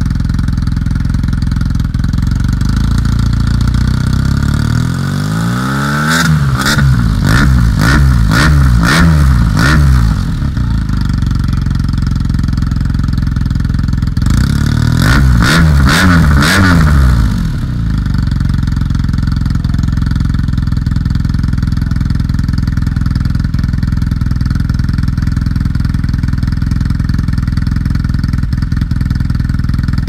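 BMW R nineT's boxer twin breathing through an HP Corse GP-07 twin-silencer exhaust: it idles steadily, is revved with a run of quick throttle blips about five seconds in and again around the middle, and settles back to idle each time.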